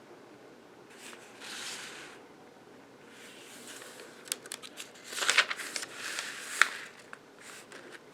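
Close-up handling noise: a soft swish, then rustling mixed with several sharp clicks and taps, the loudest click about two-thirds of the way through.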